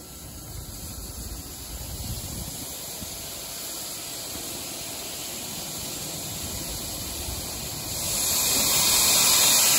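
Steam locomotive standing with steam hissing, the hiss swelling and becoming much louder about eight seconds in.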